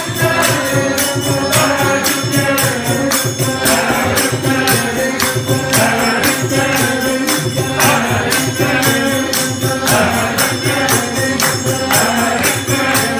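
Devotional bhajan music: a group chanting over jingling percussion that keeps a fast, steady beat.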